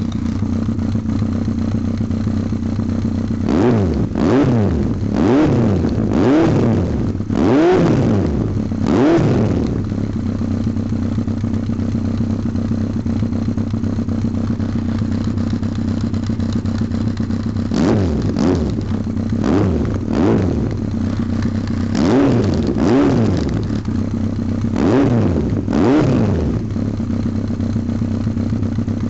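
Yamaha XJR1300's air-cooled inline-four idling steadily through an OVER aftermarket muffler, blipped with the throttle in two runs of quick revs, each rev rising and falling back to idle: about five in the first few seconds and about seven more in the second half.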